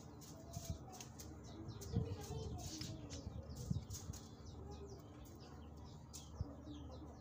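Small birds chirping repeatedly in the background, with a few light clinks and scrapes of a small metal spoon against miniature ceramic cups and a bowl, the sharpest about two seconds in and again near four seconds.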